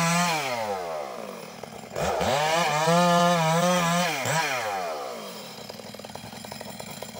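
Stihl two-stroke chainsaw ripping lengthwise along a suren log. It runs at full throttle, falls off, and is opened up to full throttle again about two seconds in. It then drops back to a steady rattling idle for the last few seconds.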